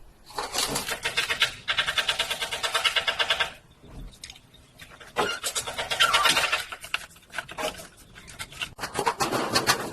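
Hands and tools fitting a replacement freezer fan motor into a refrigerator's plastic air duct. There is a rapid rattling run of about three seconds near the start and another shorter one about five seconds in, with handling noises between.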